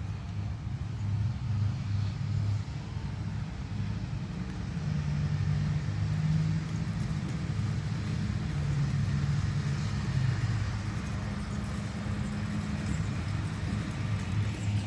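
Motor vehicle running: a low steady rumble with an engine hum that shifts in pitch a few times.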